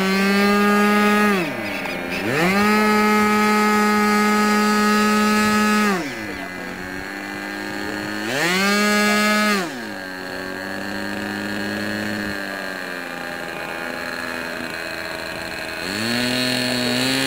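Radio-controlled model airplane's motor running at high throttle, cut back and opened up again several times, so its pitch swoops down and climbs back each time.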